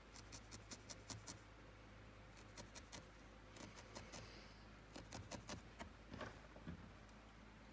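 Felting needle stabbing repeatedly into wool, faint quick soft ticks coming in several short bursts of rapid pokes.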